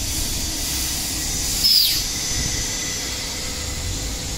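Workshop background noise: a steady hiss over a low rumble, with one short falling whistle about two seconds in.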